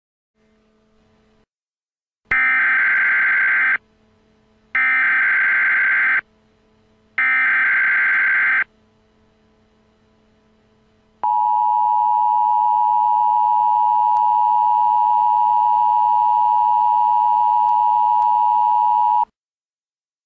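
Emergency Alert System SAME header: three harsh data bursts of about a second and a half each, followed by the NOAA Weather Radio warning alarm tone, a steady 1050 Hz beep held for about eight seconds, announcing a weather warning message.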